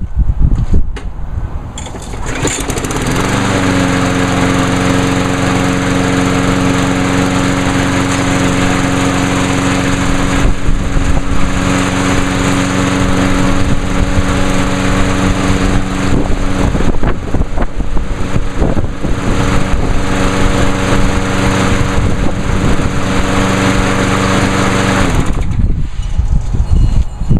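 A 2003 Husky push mower's 5 hp Briggs & Stratton Quantum engine is pull-started. It catches on the first pull about two seconds in, runs steadily for about twenty seconds, then stops near the end.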